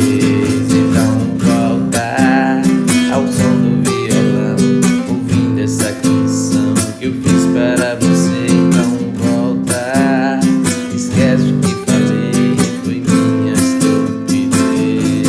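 Acoustic guitar music: chords strummed in a steady rhythm, with a wavering melody line rising above them now and then.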